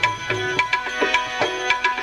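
Tabla playing a steady rhythm of about four strokes a second under sustained instrumental notes, in an instrumental gap between sung lines of a devotional bhajan.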